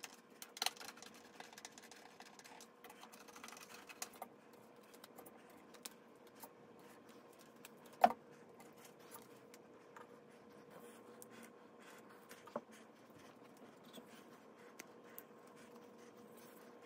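Quiet hands-on assembly noise: light rustling and scraping in the first few seconds, then scattered small clicks and taps from handling the particleboard nightstand and its metal leg plates and hardware, with one sharper tap about eight seconds in. A faint steady hum runs underneath.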